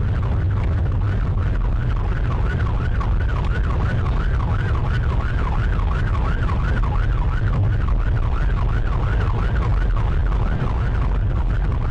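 Police car siren on a fast yelp, a rising-and-falling wail about three times a second, heard from inside the pursuing car at motorway speed. Under it runs a steady low rumble of road and engine noise.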